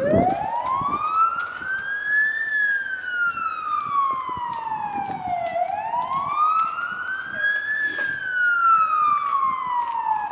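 Fire engine's siren on wail: two slow cycles, each tone rising over about two seconds and then falling over about three.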